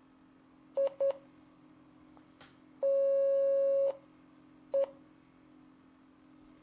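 Computer-generated Morse code tones from a Morse training program: two short beeps, a long tone of about a second, then one more short beep, dit-dit-dah-dit, the Morse letter F, sounded slowly at one steady pitch.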